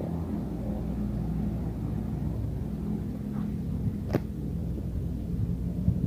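A steady low engine rumble, with one sharp click about four seconds in.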